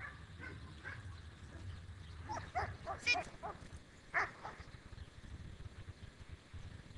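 Short animal calls: a quick run of about half a dozen about two and a half seconds in, and one more a second later, over a steady low hum.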